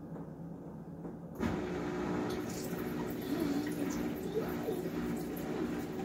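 SPT countertop dishwasher running: a steady low hum, then about a second and a half in, water suddenly starts rushing and splashing inside it and keeps going.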